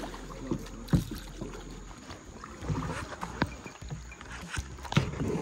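Double-bladed paddles dipping and splashing in calm water as two people paddle a tandem kayak, with irregular splashes and knocks, the loudest about a second in and again near the end.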